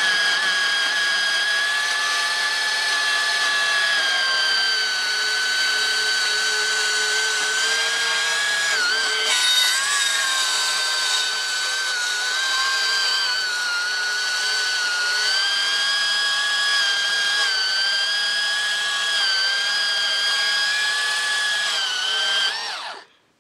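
Makita cordless portable bandsaw running and cutting thin steel box section: a steady high whine that wavers slightly as the blade works, then stops near the end. The blade is blunt from cutting stainless steel and barely cuts, so the cut is abandoned.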